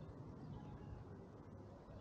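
Faint sounds of a kitten eating wet cat food from a dish right by the microphone, over a low steady background rumble.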